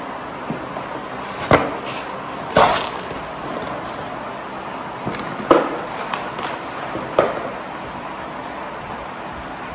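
Scissors cutting packing tape along the seams of a large cardboard box, with several sharp snips and tape tears and cardboard flaps rustling as they are lifted open, over a steady background hiss.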